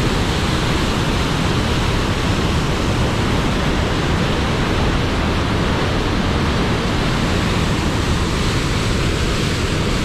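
Basaseachi Falls in spate after rains, a torrent of muddy water pouring over the rocky brink: a loud, steady rush of water.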